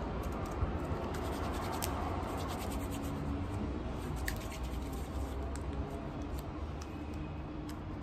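Hands rubbing and kneading a small lump of soft modelling clay to work the air out of it: a soft, scratchy rubbing with scattered faint ticks, over a steady low rumble.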